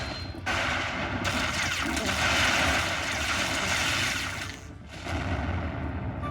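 Dense, noisy sound effects from a Buffalo Lightning slot machine during a bonus, over casino background noise, dropping away briefly about half a second in and again just before the five-second mark.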